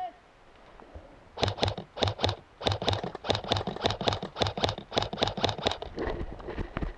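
Airsoft rifle firing a rapid string of single shots, about four or five sharp clacks a second for roughly four seconds.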